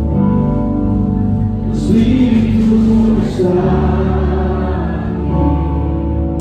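Live worship music: a slow, sustained passage with singing over held chords and bass, without drum beats.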